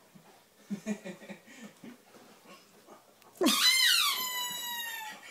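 Faint low scuffling and dog noises, then about three and a half seconds in a dog gives a loud whine that leaps up in pitch and slides slowly down for almost two seconds.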